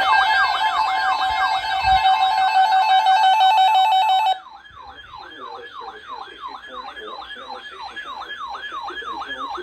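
Electronic siren in a fast yelp, each cycle falling in pitch, about four a second. A music bed plays under it and cuts off about four seconds in, after which the siren carries on alone and quieter.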